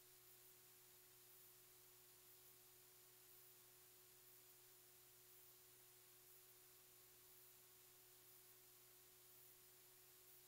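Near silence: a faint steady hiss with a low electrical hum, and no animal or other sounds.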